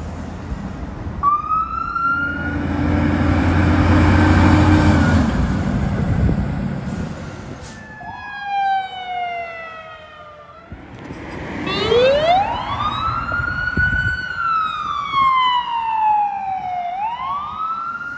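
Emergency vehicles responding with electronic sirens sounding, in several short clips: a siren starts about a second in, a vehicle's engine rumbles past, then ambulance sirens wail, rising slowly and falling, then rising again near the end.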